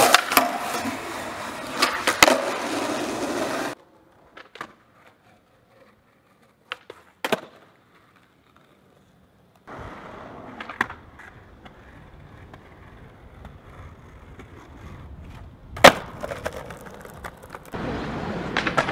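Skateboard sounds: wheels rolling on pavement and sharp clacks from the board popping, striking ledges and landing. The loudest clack comes about three-quarters of the way through, and there is a quiet stretch with only a few clicks in the middle.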